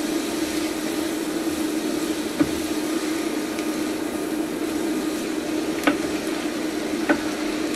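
Chopped onion, peppers and carrots sizzling in olive oil in a frying pan as they are sautéed to soften, stirred with a wooden spoon that knocks lightly on the pan three times, over the steady hum of an induction hob.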